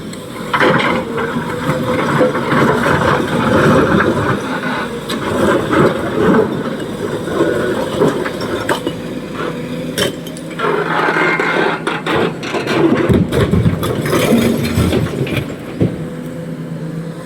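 Heavy diesel engine of an excavator loading a dump truck, running steadily under load, with repeated knocks and clattering throughout.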